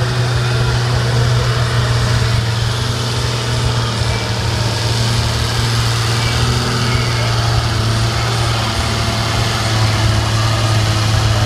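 CBT 1105 tractor's diesel engine running steadily under heavy load while pulling a weight-transfer sled down the track.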